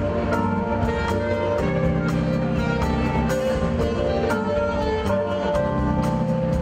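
Live band playing an instrumental passage, with held keyboard and bass notes over a steady drum-kit beat.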